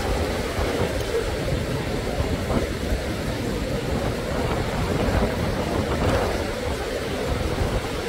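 Steady rushing noise of wind buffeting the microphone over surf on the beach, with a low rumble that rises and falls without break.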